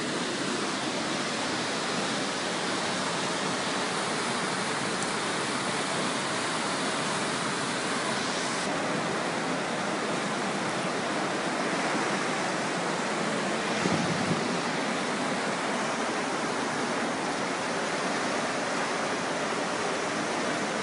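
Steady rushing of fast-flowing floodwater, an even noise without breaks.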